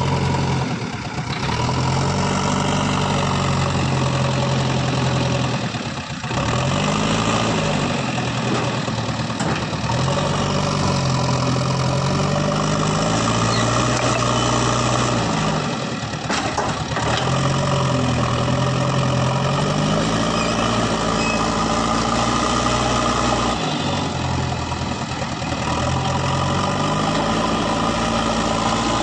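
Diesel engine of an earthmoving machine working, its speed rising and falling again and again every few seconds as the machine takes and eases off load while levelling ground.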